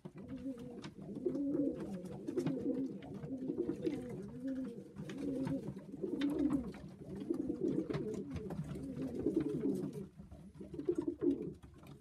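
Several domestic Macclesfield pigeons cooing over one another, a continuous run of overlapping low, rolling coos with faint clicks among them. The cooing eases briefly about ten seconds in, then picks up again.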